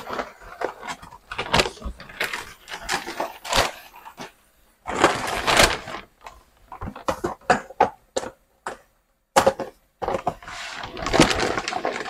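Brown paper bag crinkling and rustling in irregular bursts as live blue crabs are shaken out of it into a stainless steel sink, with scattered sharp clicks and clatter.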